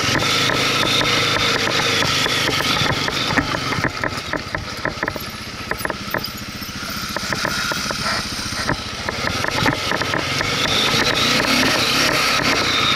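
ATV engine running as the quad rides a rough dirt trail. It eases off for a few seconds in the middle and then picks up again, with frequent short rattles and knocks from the bumps.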